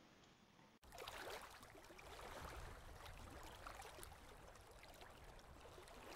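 Near silence: after almost a second of dead quiet, faint outdoor background noise with scattered light ticks.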